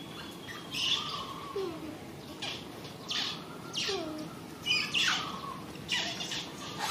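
Animal calls: short harsh squawks about once a second, with a few whistled notes that fall in pitch, over a steady outdoor background.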